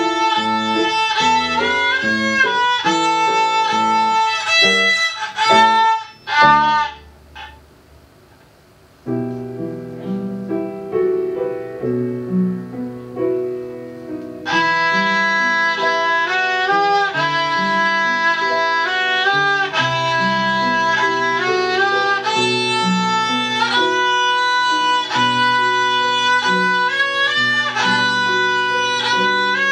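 Violin playing a melody over an accompaniment. The tune ends about seven seconds in, and after a brief pause the accompaniment plays an introduction alone; the violin comes back in about halfway through and plays on.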